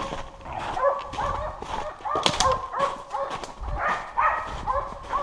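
Hunting dog barking in a quick run of short, yelping barks, about two a second, as hounds bay while working game on a boar hunt. Footsteps crunch in snow underneath.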